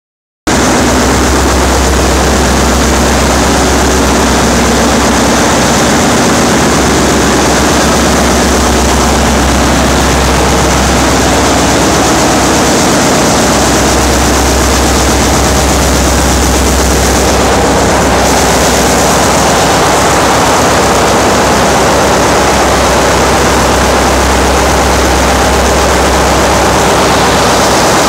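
Loud, steady machinery noise of a ship's engine room: a dense drone with a deep low hum beneath it.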